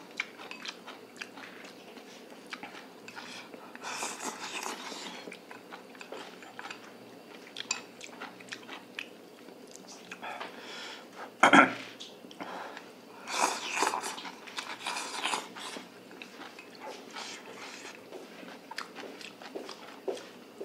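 People eating hotpot: chewing and biting food, with many small clicks. Several short, louder noisy bursts come through, the loudest about eleven and a half seconds in.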